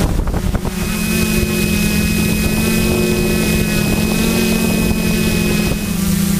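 Quadcopter's electric motors and propellers humming steadily, heard from the camera mounted on the craft as it hovers low and then flies off. A thin high whine joins the hum about a second in and fades out near the end.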